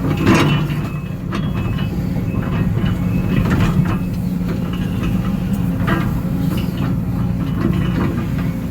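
Case CX210D excavator's diesel engine running steadily under hydraulic load, with a few short metallic clanks from the machine working.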